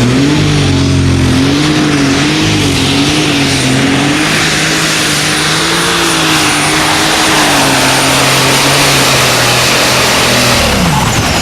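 Light super stock pulling tractor's turbocharged diesel engine at full throttle during a pull, with a steady high whine over the engine note. The engine pitch wavers up and down through the pass, then falls away sharply near the end as the throttle comes off.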